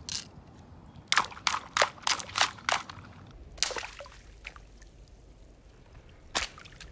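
Scissor blades snapping open and shut, a quick run of about six sharp clicks, then single clicks a couple of seconds apart, over wet pavement where water balloons are being popped.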